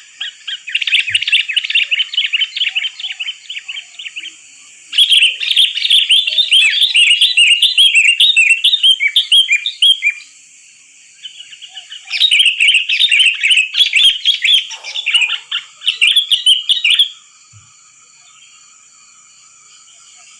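Sooty-headed bulbul (kutilang) calls: rapid, dense runs of chirping in three bursts separated by short pauses, with a longer lull near the end. It is a lure call of the kind played to attract bulbuls.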